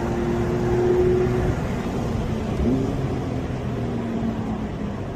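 Car engine holding a steady note for about a second and a half, then the note drops away, leaving a constant rush of tyre and water noise from driving on a wet, rain-soaked track.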